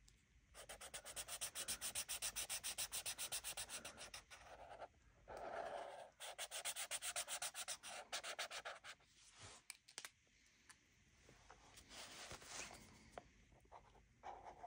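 Felt-tip marker scrubbing back and forth on paper while colouring in: quick strokes, several a second, in two long runs, then lighter, slower strokes near the end.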